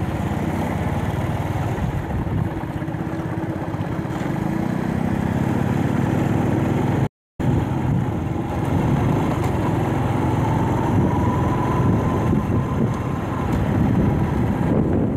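Motorbike engine running while riding, with road and wind noise; the engine note rises partway through as it speeds up. The sound cuts out for a split second about seven seconds in.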